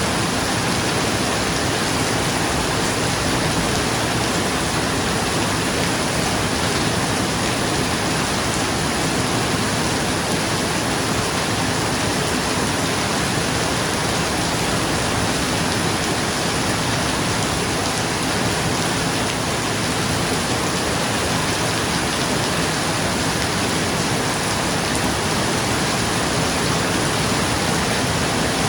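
Steady rain falling on a roof, an even hiss that does not change.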